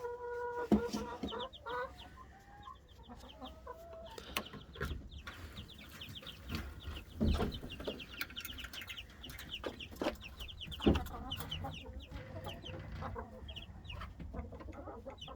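A brood of three-week-old chicks peeping, with many short high cheeps, and a drawn-out call early on. There are two dull knocks, about 7 and 11 seconds in.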